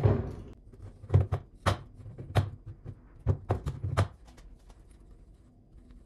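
Small pipe cutter being clamped and worked around a bike fork's steerer tube: about eight sharp metallic clicks and knocks, irregularly spaced, over about three seconds.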